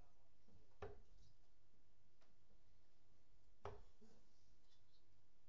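Steel-tip darts thudding into a Winmau Blade 6 bristle dartboard: two short impacts about three seconds apart, over a faint steady hum.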